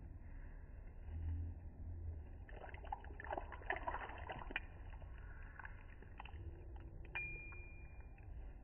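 Melted garlic butter poured from a small cup over diced chicken in a stainless steel bowl: a cluster of wet splashes and small clinks against the metal in the middle, over a low rumble.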